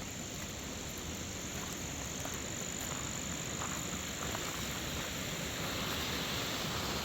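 Steady outdoor background noise: an even hiss that grows slightly louder toward the end, with a thin, high, steady tone running over it.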